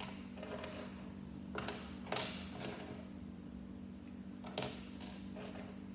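Plastic Lego bricks clicking and tapping as small pieces are handled and pressed together, a handful of short sharp clicks with the sharpest about two seconds in, over a steady low hum.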